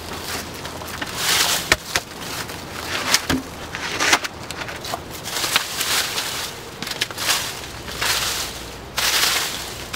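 Dry leaves and twigs crunching and rustling as they are scooped up by gloved hands, in repeated sweeps every second or two, with a few sharp cracks of sticks knocking or snapping.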